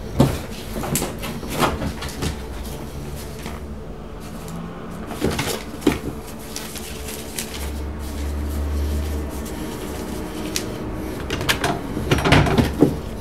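A wooden drawer being handled: knocks and bumps against its wooden frame, with rustling of bedding, a cardboard tissue box and paper banknotes being fingered. Several sharp knocks come together near the end.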